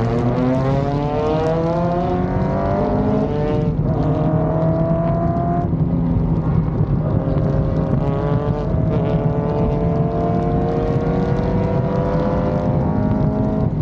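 Racing car's engine heard close up from its rear deck, accelerating hard through the gears: the pitch climbs, drops at an upshift about four seconds in and again at about six seconds, then climbs steadily through a long pull.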